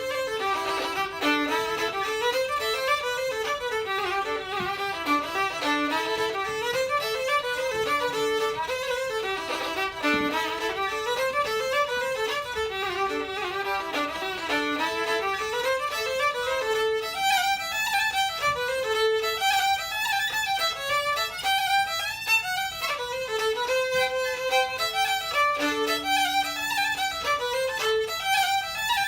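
Irish traditional fiddle and tin whistle playing a fast reel together, a steady run of quick notes; the tune climbs into a higher part a little past halfway.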